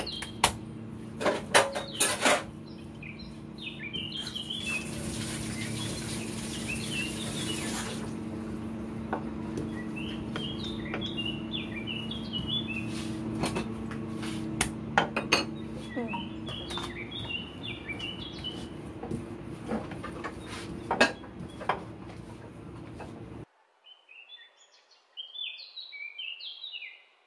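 Hands pressing and slapping oiled paratha dough rounds flat on a counter, giving sharp slaps and knocks, several in the first couple of seconds and a few more later, over a steady low hum. Small birds chirp in short runs throughout. Near the end the hum cuts out suddenly, leaving only the chirping.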